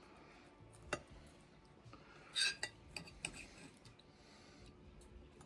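Cutlery clinking on a plate: a few short, sharp clinks of knife and fork against the plate, one about a second in and a small cluster around the middle.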